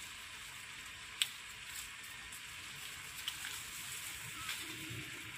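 Faint, steady outdoor hiss with a high, thin tone running through it, broken by a few sharp clicks. The loudest click comes about a second in, with smaller ones later.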